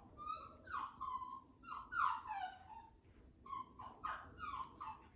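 Miniature American Shepherd puppy whining in its crate: a run of high, short whines, several sliding down in pitch, with a brief lull about three seconds in. The whining is the crate anxiety of a puppy left with its owners out of the room.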